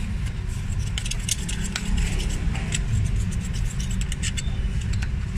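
Screwdriver tip scraping and picking carbon deposits out of the port of a removed Mitsubishi Montero Sport EGR valve: a run of small metal scrapes and clicks over a steady low background hum.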